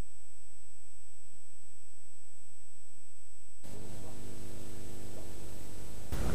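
Steady, unchanging electronic tone with hum from an old videotape soundtrack; about three and a half seconds in, tape hiss joins it.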